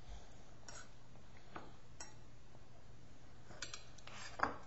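Metal spoon scraping and clinking against a small stainless steel bowl while ice cream is scooped: scattered light taps, a quick cluster of them shortly before the end, and one louder ringing clink near the end.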